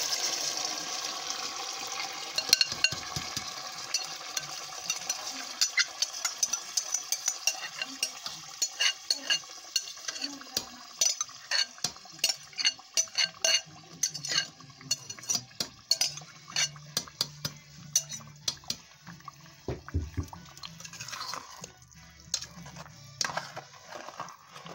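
Chile sauce sizzling in the hot oil and fried pork as it goes into the pot, the sizzle fading over the first several seconds. Then a spoon clinks and scrapes against a glass blender jar and the pot many times, several quick taps a second, as the last of the sauce is emptied out.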